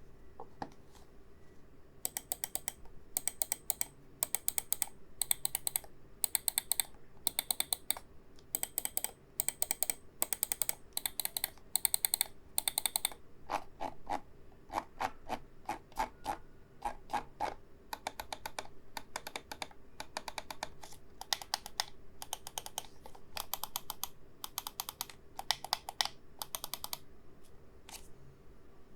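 RAWM ER21PRO gaming mouse buttons clicking over and over, each click a sharp pair of snaps about once or twice a second. In the middle there is a run of duller, lower clicks, then the sharp clicking resumes.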